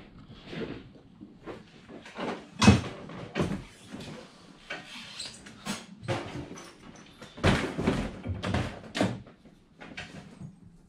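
Irregular knocks, thumps and clatter of objects being bumped and shifted by hand. The loudest knock comes about two and a half seconds in, with a run of thumps near the eight-second mark.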